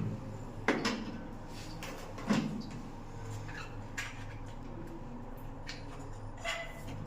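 A few scattered knocks and clicks, as of things being handled or set down, over a steady low hum; the loudest knocks come in the first few seconds.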